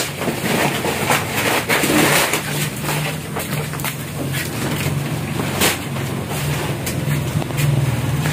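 Plastic packaging rustling and crinkling as a bulky wrapped package is carried and handled, with scattered clicks and knocks, over a steady low hum.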